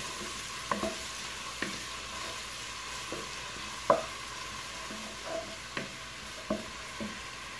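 Chopped onion sizzling in hot oil in a pot, sautéing until soft, while a wooden spoon stirs it and knocks against the pot now and then; the loudest knock comes about four seconds in.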